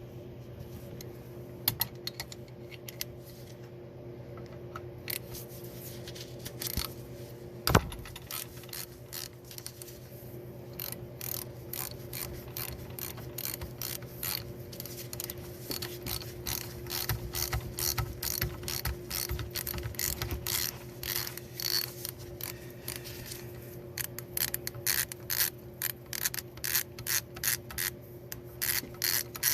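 Repeated metallic clicking and ratcheting of hand work on a manual-transmission gear selector assembly, with a single louder knock about eight seconds in. The clicking grows dense and fairly regular in the second half, over a steady low hum.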